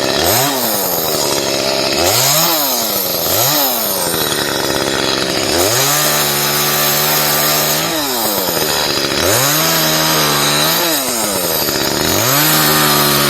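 Gas chainsaw revving: three quick blips of the throttle, then held at full speed three times for a second or two each, dropping back to idle in between, as it cuts branches. Its chain is dull and nearly worn out, hand-sharpened about as far as it will go.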